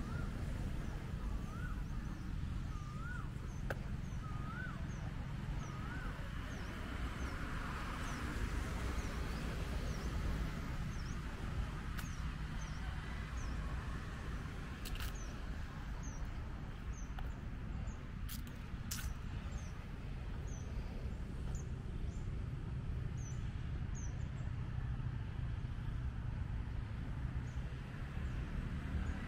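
Birds calling in trees: one repeats a short whistle that rises and falls about every second and a half for the first few seconds, while another gives short high chirps about twice a second throughout. A steady low rumble runs underneath, with a few sharp clicks near the middle.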